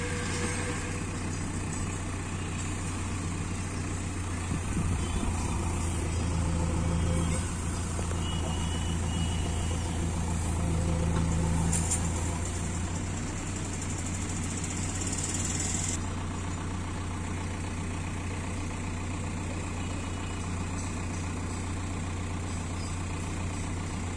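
Diesel engines of heavy farm and earthmoving machinery idling steadily, with the hum rising a little twice.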